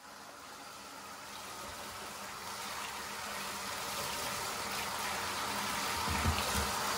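Bathtub faucet running, its stream splashing over a white artificial coral aquarium decoration being rinsed by hand; the rushing grows steadily louder, with a few low bumps near the end.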